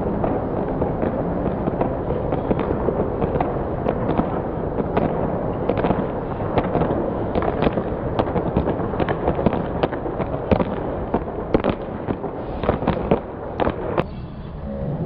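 Spectators cheering and clapping, with many sharp individual claps standing out, thickest in the second half. The sound cuts off abruptly near the end.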